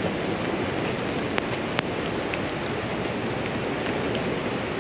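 Steady rush of fast-flowing river water near Cumberland Falls, an even wash of noise, with two brief faint clicks a little over a second in.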